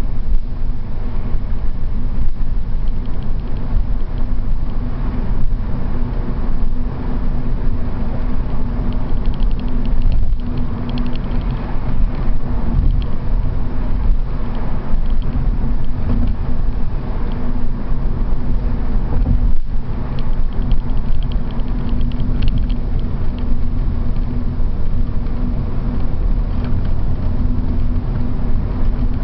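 Cabin noise of a BMW 328 driving at motorway speed, heard from inside the car: its straight-six engine running steadily under a heavy, constant rumble of tyres and road with a steady low hum.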